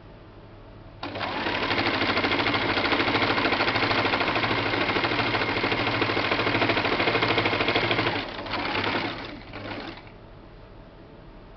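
Sewing machine stitching a straight seam at a steady fast speed, starting about a second in. Near the end it runs in two short bursts before it stops.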